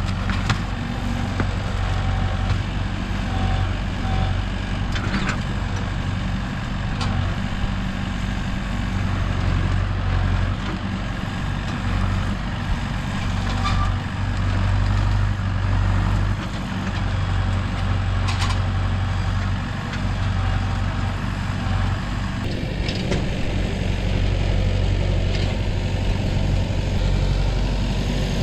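A large vehicle engine running steadily, with a few short knocks and clicks over it; its tone changes about 22 seconds in.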